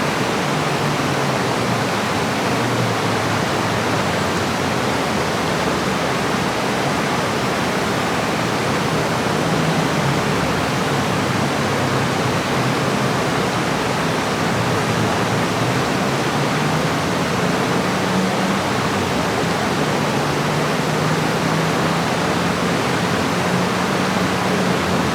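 Running water rushing steadily, an even unbroken wash of noise.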